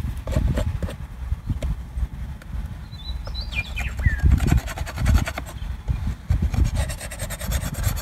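Rhythmic scraping on wooden beehive parts being cleaned out, starting about halfway through, over a low rumble.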